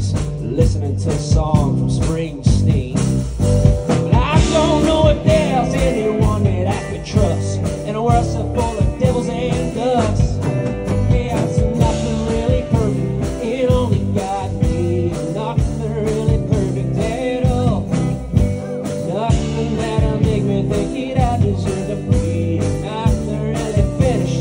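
Live blues-rock band playing with acoustic guitar, electric guitar and electric bass over a steady beat.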